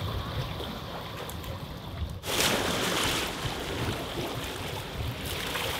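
Small waves washing against shoreline rocks, with wind on the microphone; the noise turns suddenly louder a little over two seconds in.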